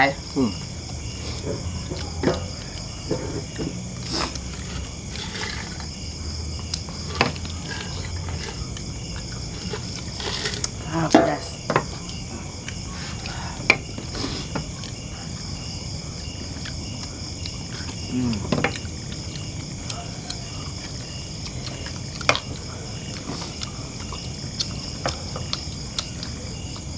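Steady chorus of night insects such as crickets, with evenly pulsing high chirps. Scattered clicks and knocks of people eating by hand from plates and a spoon, and a couple of brief vocal sounds.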